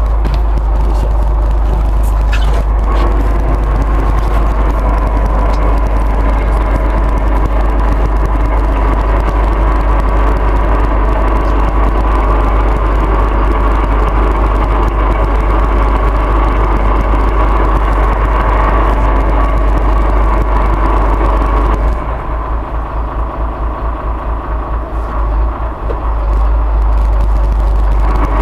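Small boat's engine running steadily under way, with heavy wind rumble on the microphone. For a few seconds near the end the rumble drops a little and flutters before it steadies again.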